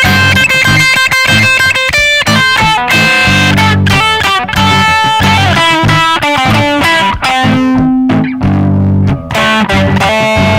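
Les Paul-style electric guitar playing fast melodic lead lines through an effects unit, over a looped backing that repeats underneath.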